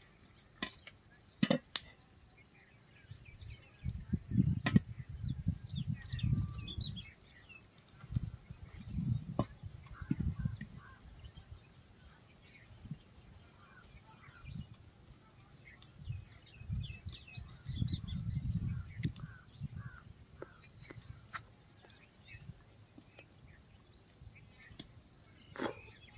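Outdoor field ambience: wind gusting on the microphone in several low rumbling bursts, with small birds chirping and a few sharp knocks.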